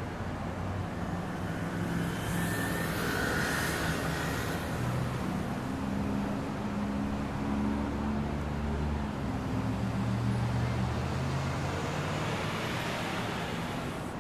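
Street traffic: vehicle engines running under a steady wash of road noise, with a vehicle passing by about three seconds in and another near the end.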